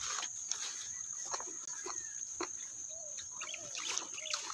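Chickens clucking a few short times, most clearly about three seconds in, over scattered light clicks and a steady high-pitched whine.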